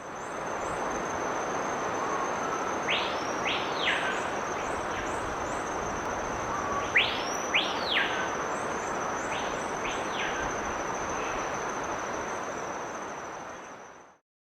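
Countryside ambience: a steady high insect-like drone over a hiss, with bird calls of paired rising-and-falling whistles three times. It fades in at the start and fades out near the end.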